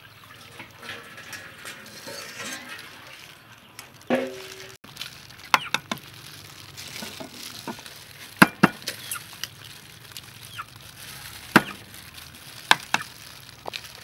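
Eggs being cracked against the rim of a stainless steel bowl: a string of sharp, separate cracking taps a second or so apart through the second half. A short knock comes about four seconds in, after a few seconds of soft liquid noise.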